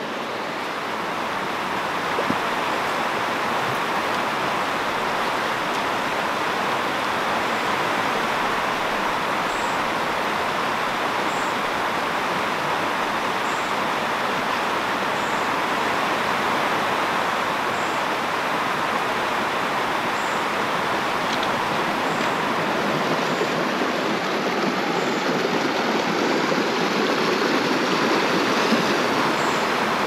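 River water rushing: a steady, even noise of flowing current that grows slightly louder near the end.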